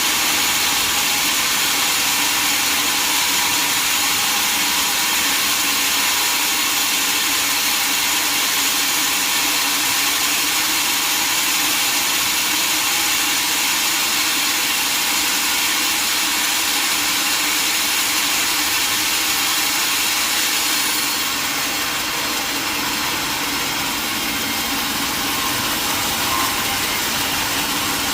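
Sawmill machinery running with a steady, even noise that drops slightly in level about twenty seconds in.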